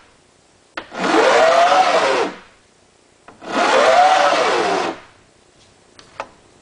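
Metal file drawn in two long, slow strokes across the tops of brass harpsichord bridgepins to dress them flat, each stroke about a second and a half with a tone that rises and then falls. Small light taps come between the strokes and twice near the end.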